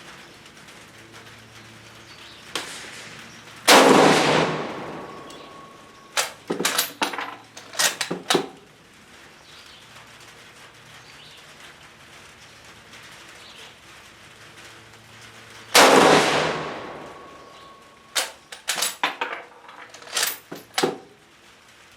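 Two shots from a Spanish FR7 bolt-action rifle about twelve seconds apart, each ringing out and dying away over about a second. After each shot comes a quick run of sharp metallic clicks and clacks as the bolt is worked to eject the case and chamber the next round.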